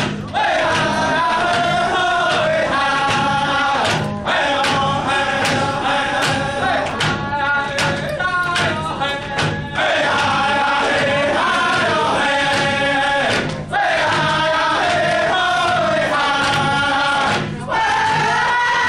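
Round dance song: a group of singers with hand drums sings together over a steady drumbeat. The singing breaks off briefly a few times, letting the drumbeats stand out.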